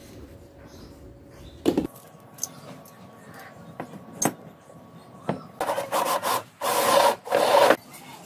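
A few sharp clicks of hard pieces being handled, then a run of loud, gritty scraping and rubbing strokes of concrete parts on the worktable near the end.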